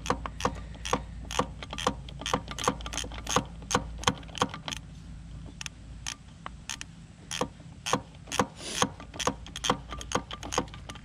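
A ratchet wrench clicking in runs of about three to four clicks a second as a long bolt is backed out of a 2001 Yamaha YZ426F's top end. There is a short pause around the middle before the clicking resumes.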